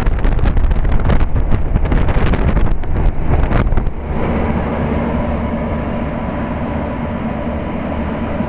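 Old General Electric central air-conditioner condensing unit (circa 1973) running: the condenser fan's discharge air buffets the microphone for about the first four seconds. After that comes the steadier, even hum of the unit with a constant low tone.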